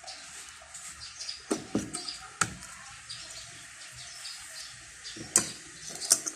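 A few sharp clicks and knocks over a steady hiss, with small birds chirping in the background.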